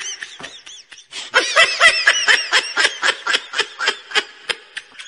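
A laughing sound effect: a rapid, even string of short giggles, about three a second, louder from about a second in and then slowly fading.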